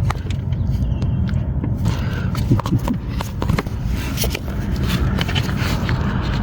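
Scattered clicks, clinks and scrapes of hand tools working at the bolts of a car's exhaust, over a steady low rumble.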